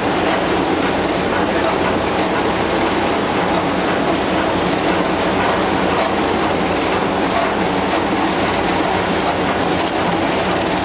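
Reel-to-pack continuous-stationery converter, a web printing machine for business forms, running steadily: a dense, even mechanical clatter with faint light ticks repeating through it.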